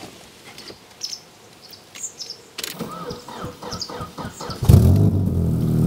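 Ford Sierra 2.0 DOHC four-cylinder engine cranked by the starter for about two seconds, catching with a loud burst near the end and settling into a steady idle through a Remus exhaust. Birds chirp before the cranking.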